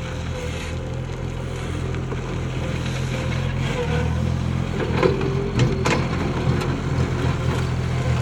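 Bobcat S70 skid-steer loader's diesel engine running steadily. A few sharp knocks and clatter sound about five to six seconds in.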